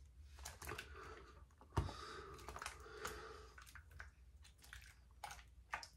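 Faint, irregular crackling scrapes of a safety razor cutting stubble through shaving-cream lather, with a single sharp knock about two seconds in.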